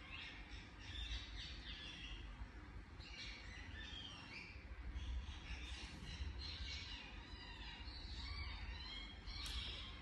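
Indian ringneck parakeet chirping and chattering in many short, high calls that come in quick runs all through, over a low steady rumble.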